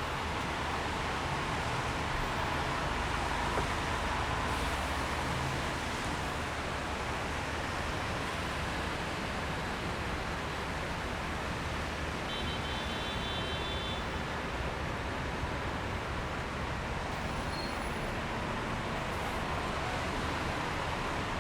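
Steady road traffic noise, a continuous rumble and tyre hiss with no single vehicle standing out. About twelve seconds in, a short high beeping tone sounds for a couple of seconds.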